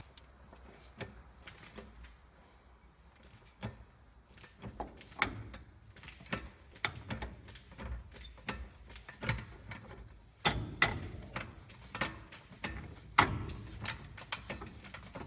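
Irregular metallic clicks and knocks from steel suspension parts and hand tools being handled as a new spindle is fitted onto the ball joints of a truck's front suspension, growing busier about a third of the way in with a few sharper clanks in the second half.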